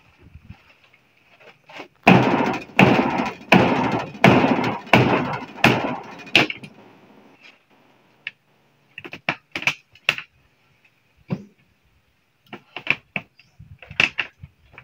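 Hammer blows on wood: seven heavy strikes about two-thirds of a second apart, each ringing briefly. Lighter, scattered knocks and taps follow.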